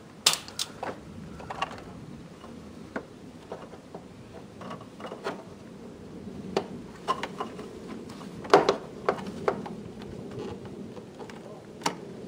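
Distributor cap being unclipped and lifted off a Porsche 911SC engine: scattered sharp clicks and knocks of plastic and metal being handled, the loudest about eight and a half seconds in.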